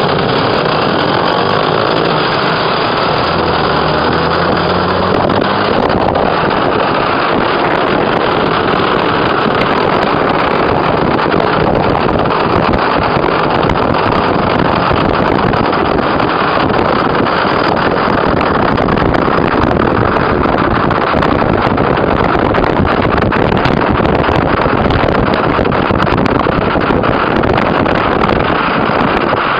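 Motorcycle and car engines running in moving traffic, heard from a moving car with its window open, under loud, steady road and wind noise. An engine's pitch rises over the first few seconds.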